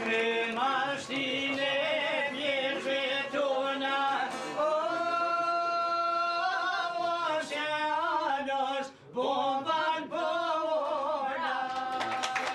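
Men singing a northern Albanian folk song with long held, wavering notes, to the plucked two-stringed çiftelia; the singing breaks off briefly about nine seconds in.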